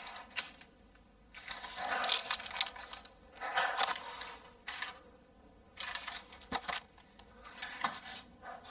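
Paper tearing and crinkling in about five short bursts with quiet gaps between.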